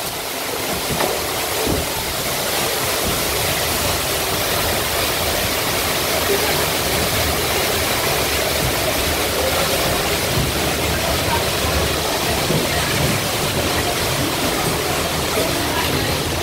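Steady rushing and splashing of water in a log flume channel, heard from a riding log boat.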